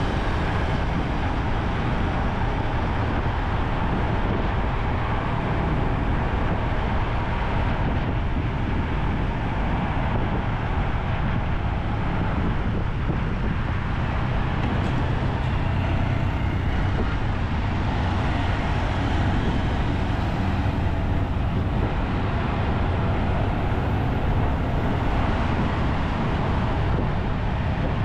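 Steady road and traffic noise heard from a motorcycle riding through city streets, with a heavy low rumble and no breaks or sudden sounds.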